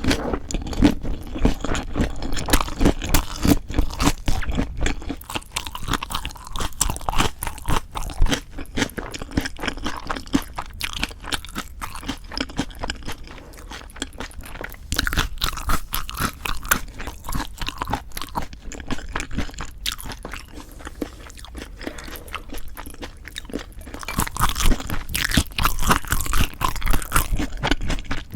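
Close-miked chewing and crunching of raw fish bibimbap and boneless chicken feet wrapped in leafy ssam greens, a dense run of wet crunches and bites. It is busiest at the start and again near the end, with softer chewing in between.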